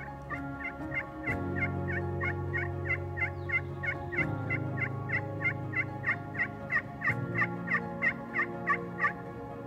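Turkey yelps: a long run of about 27 short calls at about three a second, growing louder toward the end, over soft background music.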